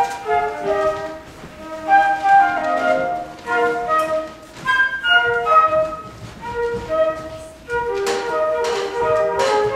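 Flute quartet playing a bouncy tune in several parts at once, in short detached notes, with crisper, breathier note attacks in the last couple of seconds.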